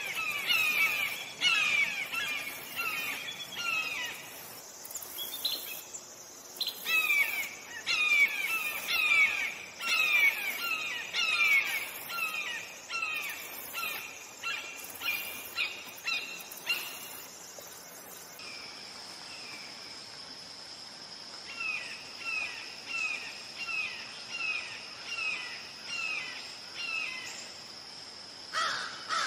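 Red-shouldered hawk calling a long series of loud, down-slurred screaming notes, about two a second, with a short break a few seconds in. Past the middle the calls stop for a few seconds, then resume fainter over a steady high buzz.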